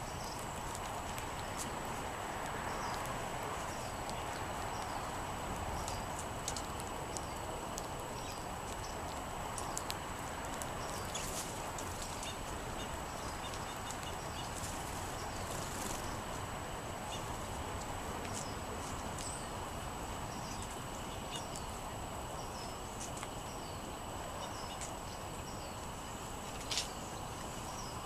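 Sparrows and other small songbirds giving many short, high chirps over a steady background hiss, with one sharper note near the end.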